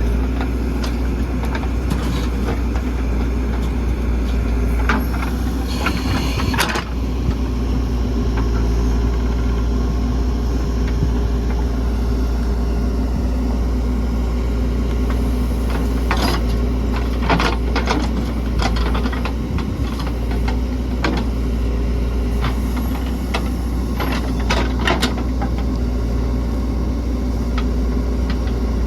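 Diesel engines of a JCB 3DX backhoe loader and a tractor running steadily while mud is loaded, with scattered clanks and knocks from the work.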